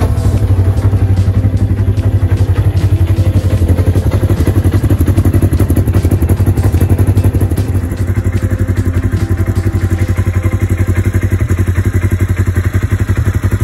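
Polaris RZR RS1's twin-cylinder engine running at idle through a newly fitted aftermarket dual-tip muffler: a loud, even exhaust pulse, slightly quieter about eight seconds in.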